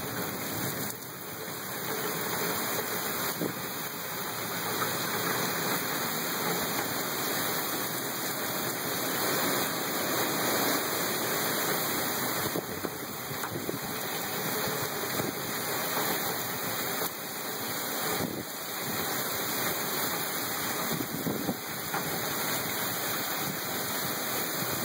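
Heavy wind-driven rain pouring down in a severe storm with strong gusts, a dense steady rushing noise that builds over the first few seconds and then holds with small swells.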